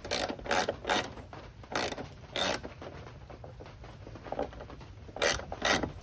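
Handling noise from a metal mounting bracket and bolt being worked into position by hand: short, irregular clicks and scrapes, several in the first couple of seconds, a quieter stretch, then a few more near the end.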